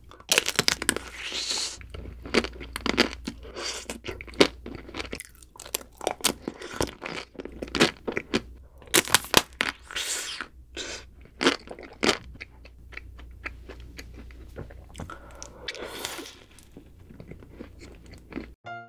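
Close-miked biting and chewing of chocolate-coated ice cream bars: the hard chocolate shell cracks in many sharp, irregular crunches, with softer chewing and mouth sounds in between.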